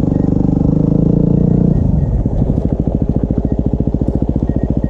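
Dual-sport motorcycle engine running. About two seconds in the revs drop, and it settles into an even, pulsing low-speed run.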